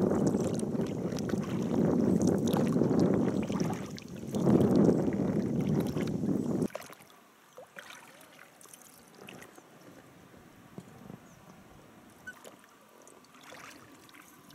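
Wind rushing over the microphone aboard a boat drifting on a river, cutting off abruptly about seven seconds in. After that it is quiet, with faint water lapping and small knocks against the boat.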